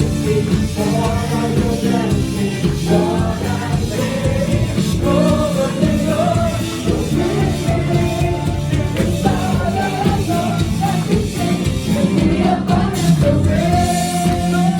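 Live worship band playing a gospel-pop song, with a steady drum beat and a melody line over the chords.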